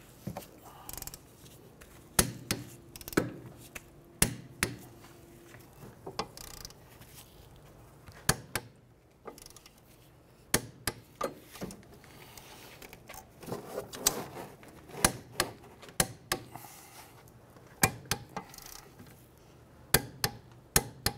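Torque wrench ratcheting the rear wheel hub bearing's mounting bolts down to 45 ft-lb in a crisscross pattern: a string of sharp metallic clicks and knocks at irregular intervals.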